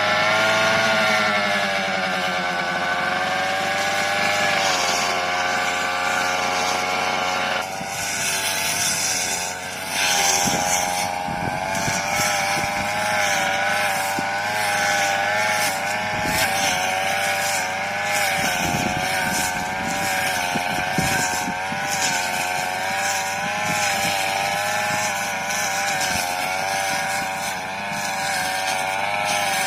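Small petrol engine of a push lawn mower running steadily, its speed wavering up and down throughout, with a sudden change in its tone about eight seconds in.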